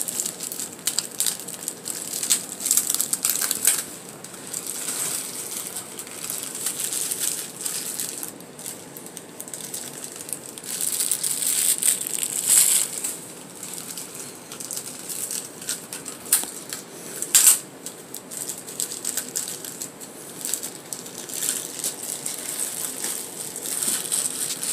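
Clear plastic bags crinkling and rustling in bursts as small potted orchids are handled in and out of them, with a sharp click about two-thirds of the way through.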